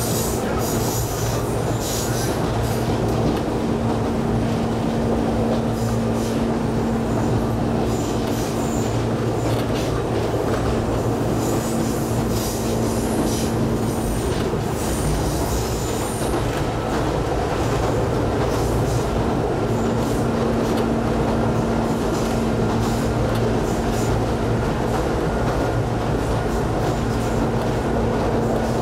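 Ichibata Electric Railway 5000 series electric train (ex-Keio 5000 series) running at speed, heard from inside the passenger car: a steady rumble of wheels on rail under a constant hum. Frequent short clicks and rattles run through the first half, then thin out.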